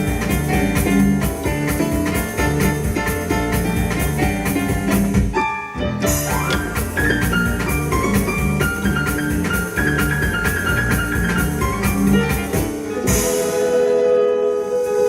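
Yamaha Electone electronic organ playing a fast, danceable piece in piano and drum voices over a steady beat. The beat breaks off briefly about five and a half seconds in, and near the end the drums stop, leaving a held chord.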